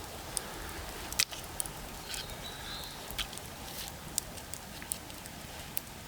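Dry wood crackling: sharp, irregular snaps and clicks over a steady hiss, with a faint short high whistle about two seconds in.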